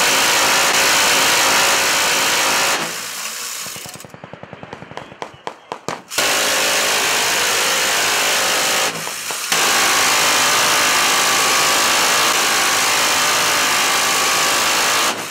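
M134 Minigun, an electrically driven six-barrel 7.62mm NATO Gatling gun, firing long bursts at a rate so high that the shots merge into one unbroken buzz. It breaks off about three seconds in, leaving a few seconds of fast clicking that thins out, then fires again, with a short pause around nine seconds and a long burst until near the end.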